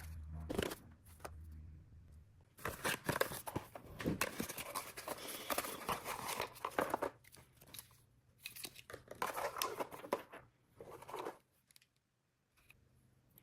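Irregular tearing and crinkling handling sounds in short bursts with pauses, dying away to near silence near the end.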